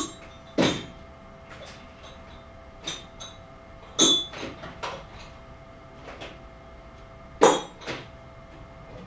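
Intermittent sharp metallic clinks and knocks of tools being handled at a milling machine, about five in all, the loudest about seven and a half seconds in, over a faint steady hum.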